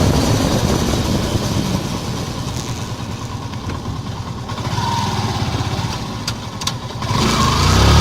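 Yamaha FZ-S FI V2.0's single-cylinder engine running with a steady exhaust note. The level drops off a little past the middle, swells again, and rises near the end, with a couple of sharp clicks just before that.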